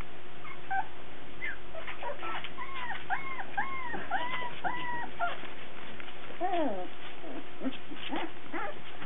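Cardigan Welsh Corgi puppy whining: a run of about six short, high, arching whines about two a second, then a few shorter cries that fall in pitch.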